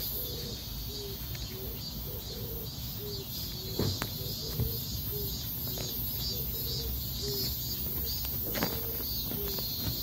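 Insects chirping in a steady pulsing rhythm, about two to three pulses a second, over a low rumble. A few sharp knocks, about four seconds in and again near the end, come from the phone being handled.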